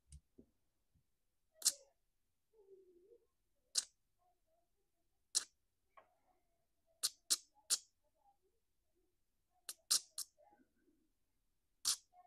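About ten light, sharp clicks at uneven spacing, some in quick runs of two or three, from fingers handling a small chainsaw carburetor hooked to a hand pressure tester.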